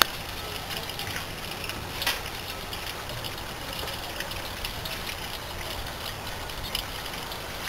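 Harbour water lapping and trickling against a moored ship's hull: a steady wash of noise, with a sharp click about two seconds in.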